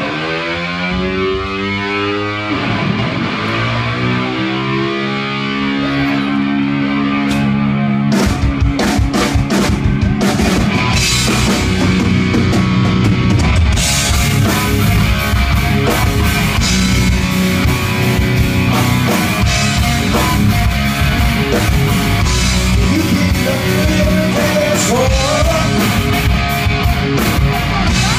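Live rock band playing a song intro. An electric guitar slides up and down in pitch at first, then holds notes, and the drum kit and full band come in about eight seconds in.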